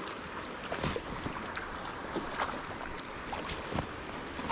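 Shallow creek water running over a riffle: a steady rush with occasional small splashes and lapping.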